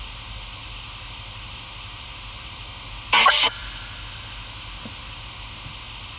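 Steady hiss of static throughout, with one short, loud voice-like cry about three seconds in.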